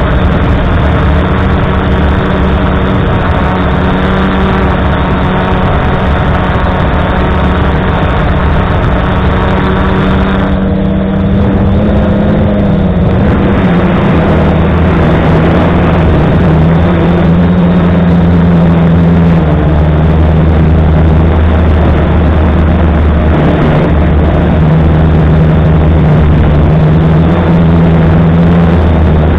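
F450 quadcopter's motors and propellers running, heard close up from a camera on the frame: a loud, steady hum over a rushing noise. The hum's pitch dips about twelve seconds in, then steps up and down as the drone manoeuvres.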